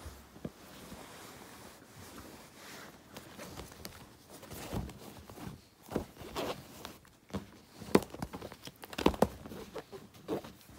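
A canvas tote bag being handled: fabric rustling with irregular soft knocks and taps, the loudest about 8 and 9 seconds in.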